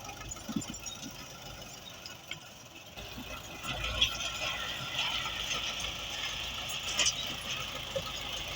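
Engine of road construction machinery running steadily, getting louder about three seconds in, with a few short knocks.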